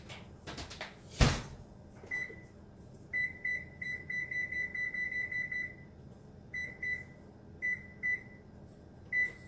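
Electric range's oven control panel beeping as its buttons are pressed to set the baking temperature: one beep, then a fast run of beeps lasting a few seconds as the setting is scrolled, then short groups of two and three beeps and one more near the end. A sharp knock sounds about a second in.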